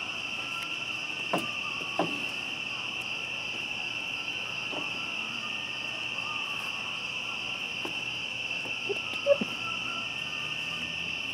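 Steady, unbroken chorus of night crickets. A few short, sharp taps and knocks from the puppies playing on the wooden deck; the loudest comes near the end.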